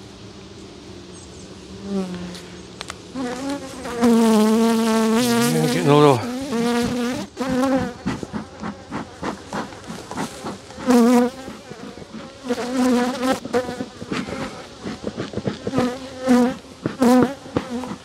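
Honeybees buzzing around an open hive. A faint steady hum gives way, about two seconds in, to repeated loud buzzes of single bees flying close past the microphone, each one rising and falling in pitch. The bees are upset.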